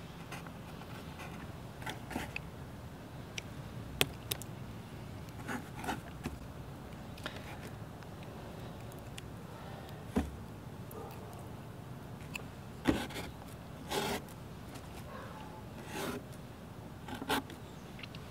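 Paintbrush scraping oil paint across a large canvas in short, irregular strokes.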